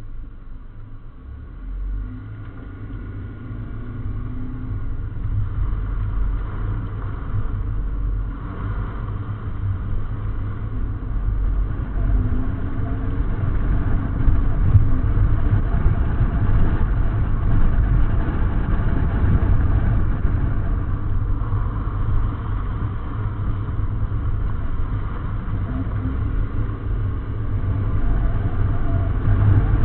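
Chevrolet Malibu driving off and gathering speed, heard from a camera mounted beside the front wheel: a low rumble of tyres on the road, growing louder over the first fifteen seconds and then holding steady.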